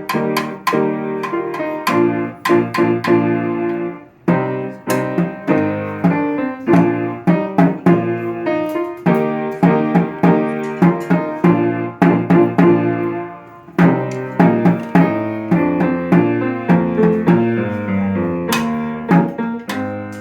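Piano playing a lively piece in quick, sharply struck notes, with short breaks about four seconds in and near fourteen seconds.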